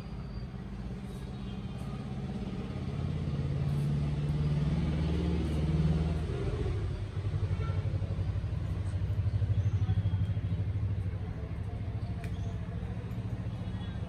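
A motor vehicle's engine running with a low hum that grows louder in the middle.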